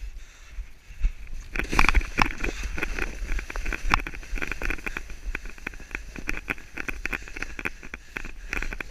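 Footsteps crunching in snow with rustling of clothing and gear close to the microphone, a quick irregular run of crackles that starts about a second and a half in over a low rumble of mic handling.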